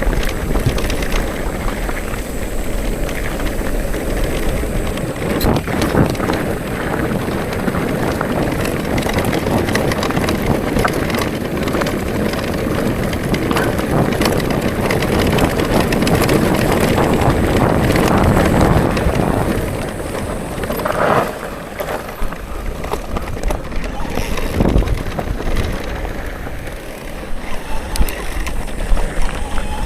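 Bicycle riding a forest road: wind rushing over the microphone and the tyres rolling and rattling over the surface, loudest until about two-thirds of the way through, then easing and turning choppy.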